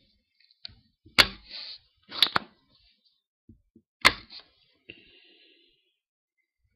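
Spring-loaded solder sucker (desoldering pump) snapping as its plunger is cocked and fired to pull melted solder off circuit-board contact points: three sharp snaps, about one, two and four seconds in, the second one doubled.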